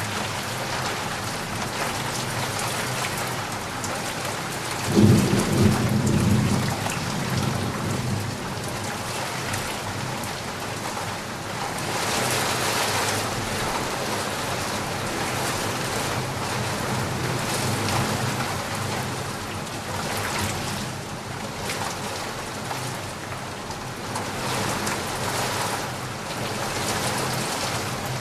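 Heavy rain falling steadily, with a sudden clap of thunder about five seconds in that rumbles low for a second or two.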